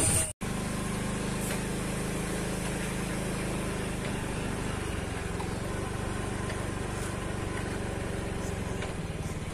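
An engine idling steadily at an even pitch, starting right after a brief dropout near the start.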